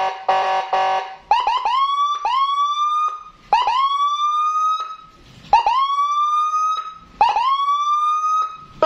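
Custom Whelen-style electronic police-escort siren sounding a pulsing multi-note tone that cuts off about a second in, then five rising whoops, each a quick upward chirp that climbs to a high note and holds it for about a second before stopping.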